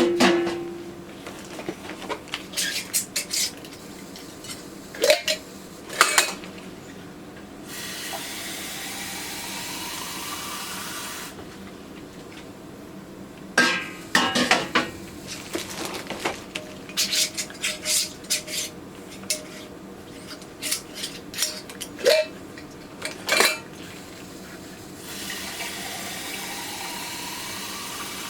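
Glass canning jars clinking and knocking against metal and against each other. Twice, faucet water pours into a jar for a few seconds, its pitch rising as the jar fills.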